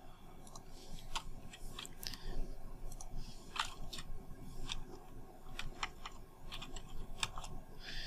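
Scattered, irregular clicks of a computer keyboard and mouse, some a little louder than others.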